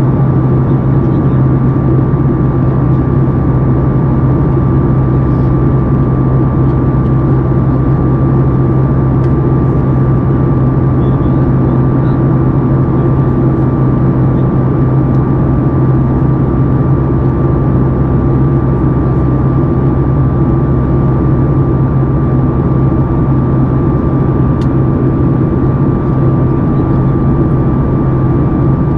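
Steady cabin drone of a Boeing 737 MAX 8 climbing, heard from inside the cabin beside the wing: its CFM LEAP-1B engines running as a loud low hum with a thin steady high tone over it.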